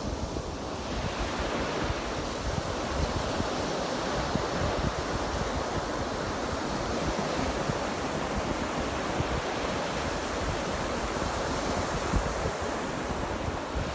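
Ocean surf: waves breaking and washing in a steady rush, with a swell about a second in. Wind buffets the microphone.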